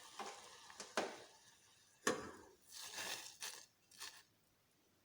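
Kehwa being strained from the pan into a cup. A few sharp clinks of metal against the cup, the loudest about two seconds in, are followed by a short rush of pouring liquid around three seconds in.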